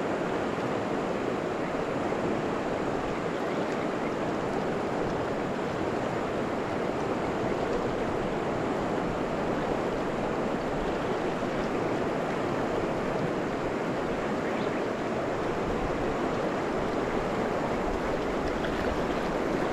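Steady rush of a river riffle: shallow, fast water running over stones around a wading angler.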